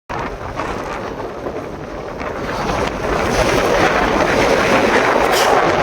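Strong gale-force wind blowing across the microphone: a steady rush of noise that gets louder about three seconds in.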